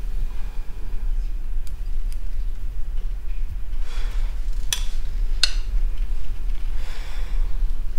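A metal spoon clinks against a ceramic bowl, two sharp ringing clinks close together about halfway through, with a few fainter taps earlier, over a steady low hum.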